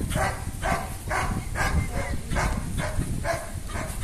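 A dog barking over and over, about two barks a second, with wind rumbling on the microphone.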